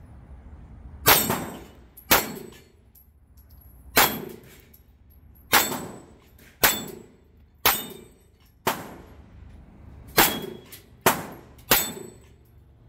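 Ten 9mm shots fired at a steel dueling tree, each hit ringing out as a metallic clang from the struck paddle. The shots come at uneven gaps, about a second apart, with a quicker pair near the end.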